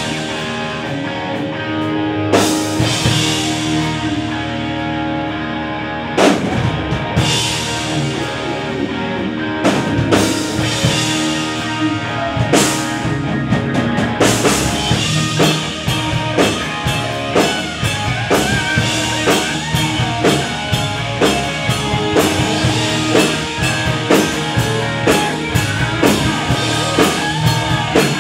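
Live rock band of electric guitars, bass guitar and drum kit playing the opening of a song. It starts with held chords and a few big crash hits, then about fourteen seconds in settles into a steady driving beat.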